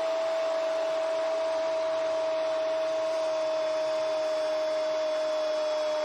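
A football commentator's long, held shout of "gol" at one steady pitch, sagging slightly near the end, over the steady noise of a stadium crowd.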